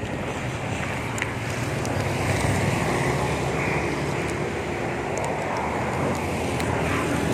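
Motorbike engine running at low speed, with wind rushing over the phone's microphone.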